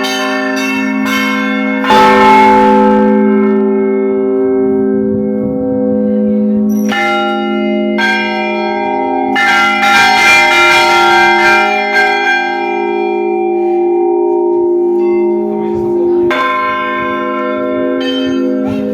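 Several large bells ringing together, struck one after another so that their long, ringing tones overlap. A strong stroke comes about two seconds in, and fresh strokes change the mix of notes several times.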